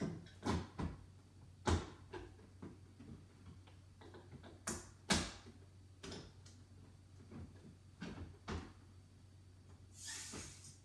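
Plastic clicks and knocks from a bottle being handled and locked into a SodaStream carbonator, a few of them sharp clacks, then near the end a short hiss of CO2 being injected into the milk in the bottle.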